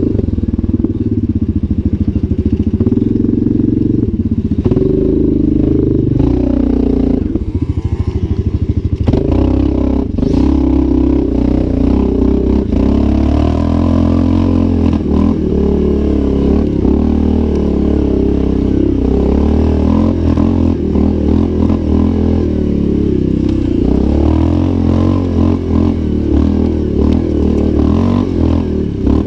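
Yamaha Grizzly 700 quad's single-cylinder four-stroke engine running under load, its revs rising and falling as it climbs a rough dirt track, with some clatter from the bike over the bumps.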